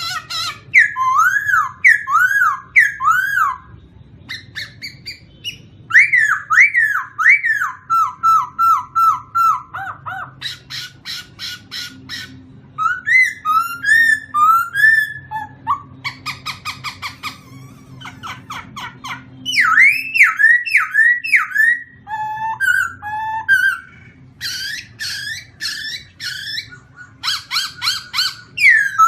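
A songbird singing a long run of varied phrases. Each phrase is a quick series of the same note or sweep repeated several times, with short pauses between phrases. A faint steady low hum sits underneath.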